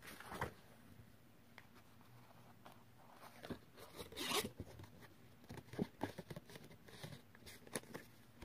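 Faint rustling and scraping of paper card being handled and pressed by hand, with scattered light taps and one louder rustle about four seconds in.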